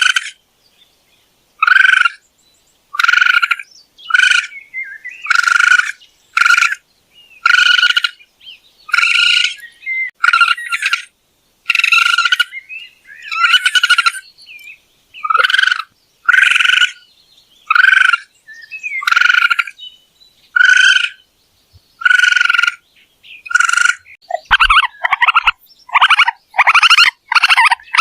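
Raccoon calling: a string of short, high, pulsing calls about once a second. Near the end they come faster and closer together.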